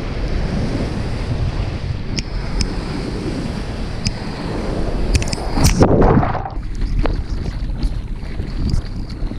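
Whitewater rushing and wind buffeting an action camera's microphone at the water surface. About five and a half seconds in, a loud splash washes over the camera, and the sound is briefly muffled just after it; light ticks of water drops hitting the camera housing come throughout.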